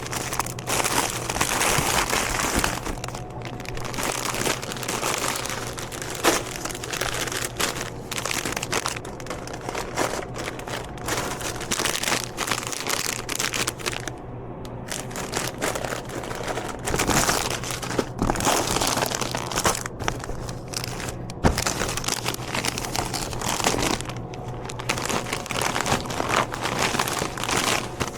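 Plastic snack bags and wrappers crinkling and rustling as they are handled and loaded into a vending machine, with scattered small clicks and a steady low hum underneath.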